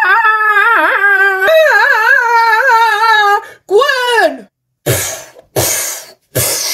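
A voice holds a long wavering cry that ends in a falling wail, a pretend scream for a figure being attacked. Then three short, sharp gunshot sounds come about 0.7 s apart.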